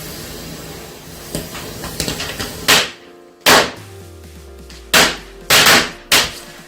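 Small firecrackers going off in a quick series, five sharp loud bangs about a second apart, with faint crackling just before them, over background music.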